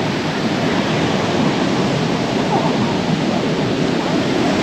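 Steady wash of surf and wind on an open beach, an even roar with no distinct events.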